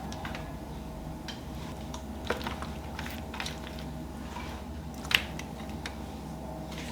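Scattered light clicks and taps, like utensils or dishes being handled, over a steady low hum; the sharpest click comes about five seconds in.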